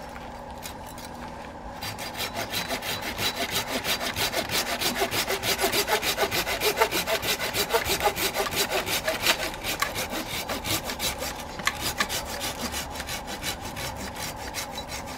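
Hand saw cutting through a European plum tree branch in steady back-and-forth strokes, about three a second. The sawing starts about two seconds in and eases off near the end.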